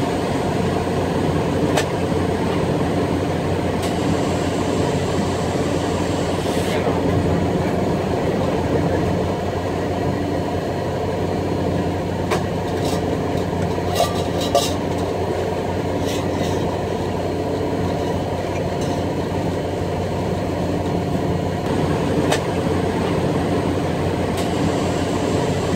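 Diesel engine of an HGMU-30 diesel-electric locomotive running steadily, heard from its cab as the train rolls along the track, with a few short clicks about halfway through.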